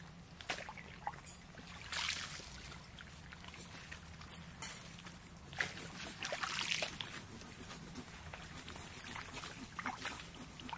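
Lake water lapping and trickling at the shore, with scattered crackles of dry leaves and bamboo litter being handled. Louder noisy rustles come about two seconds in and again around six to seven seconds in.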